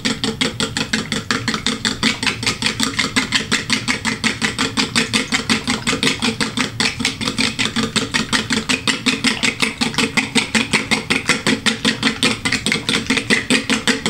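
Fork beating eggs and milk in a small plastic bowl: a fast, even run of fork strokes clicking against the plastic, about five a second.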